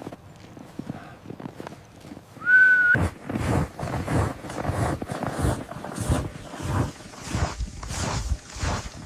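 A short single-note whistle, rising at first and then held, about two and a half seconds in. Then a steady run of footfalls in snow, about two a second.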